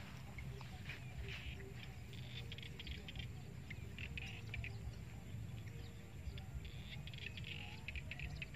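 Outdoor field ambience: many short, scattered chirps and clicks over a steady low rumble.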